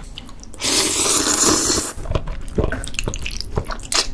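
Person slurping a mouthful of ribbon pasta in tomato sauce in one long, loud slurp about a second long, followed by wet chewing and lip-smacking.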